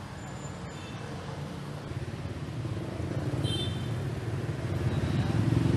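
Street traffic of motorbikes and other vehicles: a steady low rumble that grows louder, with a brief high-pitched tone about three and a half seconds in.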